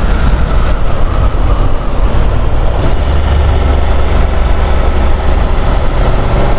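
Riding noise from a Honda NC750 motorcycle: steady wind rush over the microphone with the engine's low rumble underneath, holding a steadier hum for a couple of seconds mid-way.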